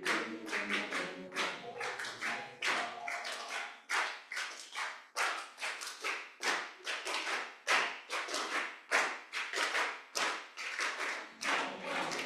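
Choir singing over steady rhythmic hand clapping by a group. The singing drops out about three seconds in, leaving the clapping alone at roughly two claps a second, then the voices come back near the end.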